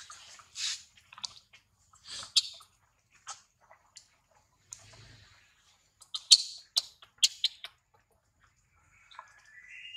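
Macaques handling and eating grapes on dry ground: a scatter of short crisp clicks and rustles, several louder ones about six to seven seconds in. Faint high chirping begins near the end.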